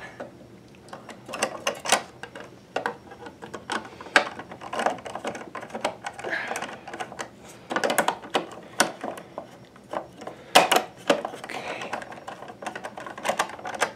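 Irregular clicks and taps of hard plastic as a Pfaff Creative Vision sewing machine's nose plate cover is pushed into place and its small screws are driven in with a screwdriver.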